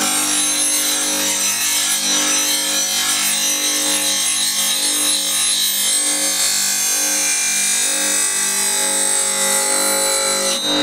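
Record Power bench grinder running with a steady motor hum while a steel bowl gouge is ground freehand against the wheel, giving a continuous hiss of steel on the stone as the tool is rolled across the wing during final sharpening.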